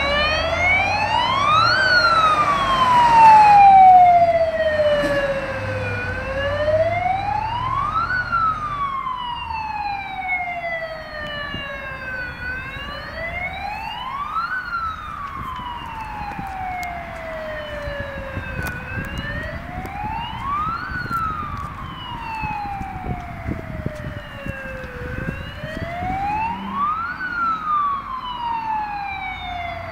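Fire engine siren on an Iveco Magirus SD-37 turntable ladder truck sounding a slow wail: the pitch climbs quickly and then falls slowly, five times over, loudest in the first few seconds.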